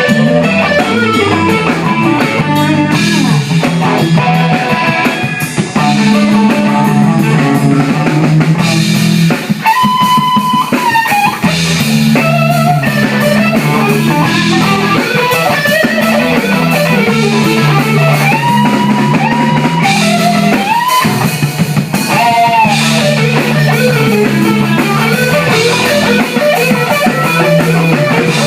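A band playing rock: electric guitar lead notes with bends over a repeating bass line and a drum kit with cymbals.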